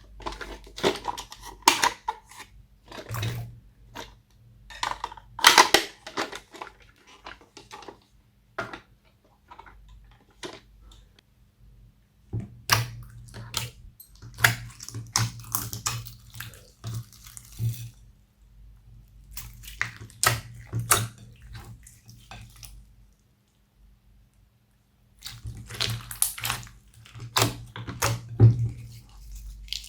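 Slime being squished and kneaded by hand: wet squelching with sharp popping clicks, coming in bursts with short pauses.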